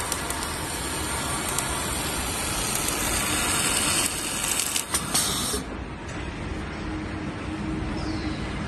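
Prop welding machine at work: a steady hissing, crackling welding noise that cuts off suddenly about five and a half seconds in, leaving a lower steady machine hum.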